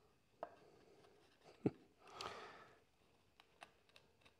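Quiet handling of cut wooden pieces: a few light knocks and taps of wood against wood, the sharpest a little over a second and a half in, and a brief soft rush just after two seconds.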